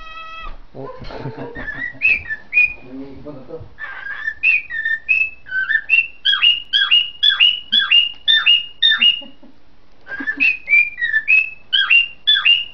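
Cockatiel whistling its song: a long run of quick, swooping whistled notes, about two a second, hopping between a lower and a higher pitch. The whistling picks up about four seconds in and breaks off briefly near the three-quarter mark before starting again.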